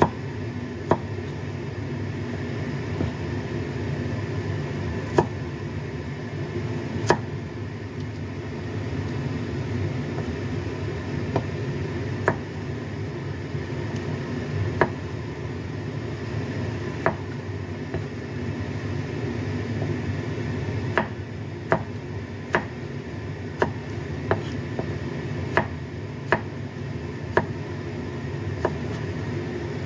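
A Chinese cleaver knocks against a cutting board as a carrot is sliced lengthwise into strips. The single sharp knocks come a second or more apart at first and faster in the last third, over a steady low hum.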